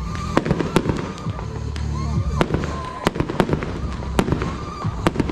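Fireworks display: a rapid series of sharp bangs from bursting aerial shells, often several a second, with music playing underneath.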